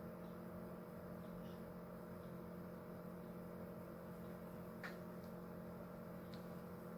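Faint steady hum, with a light click about five seconds in.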